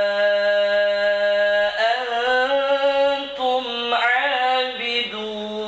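A man chanting Qur'an recitation as a prayer imam in a melodic style. He holds one long, steady note for almost two seconds, then moves into gliding, ornamented turns of pitch.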